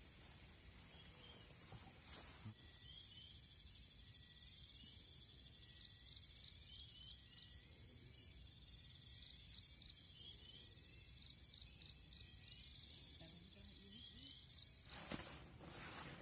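Faint insects chirring in the vegetation, a steady high trill with a pulsing beat. Near the end it gives way to a rustle of nylon as a sleeping bag is handled.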